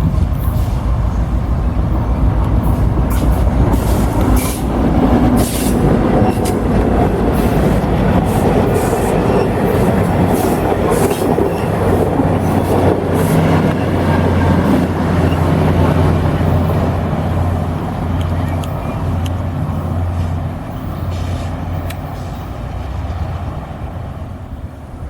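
Ontario Northland Railway train passing on the tracks: a steady rumble with many sharp rail clicks through the first half and a low steady engine drone in the middle, fading away toward the end.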